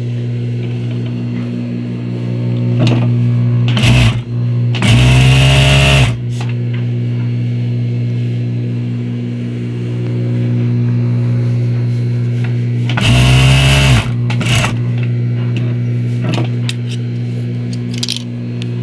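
Hercules industrial straight-stitch sewing machine, its motor humming steadily. Twice it sews a fast run of about a second, whirring up and back down, with a few clicks in between. This is the test seam on lycra after the hook timing was retarded to stop skipped stitches.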